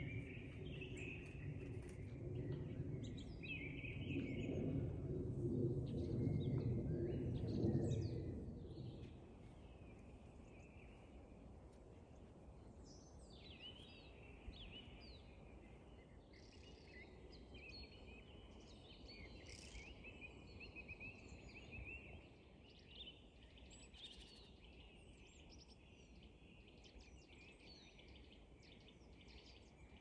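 Several songbirds singing and calling over one another, with many short chirps and warbled phrases throughout. For the first eight seconds or so a low rumble sits underneath, then fades out, leaving the birdsong against a quiet background.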